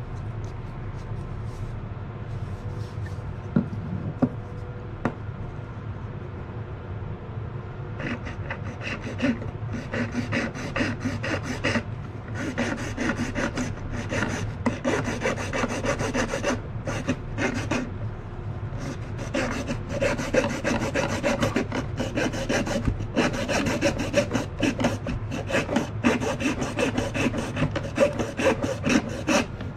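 A small hand-held hacksaw blade sawing through PVC pipe in quick back-and-forth strokes, starting about a quarter of the way in and running with a few short pauses. Before the sawing starts there is only light handling with a few knocks.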